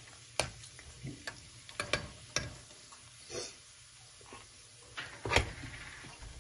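Cumin seeds and dried red chillies sizzling in hot oil in a steel kadai for a tadka, with scattered sharp clicks and pops, some from a spoon stirring in the pan in the first seconds. The crackle of cumin in oil is the sign that the oil is hot enough for tempering.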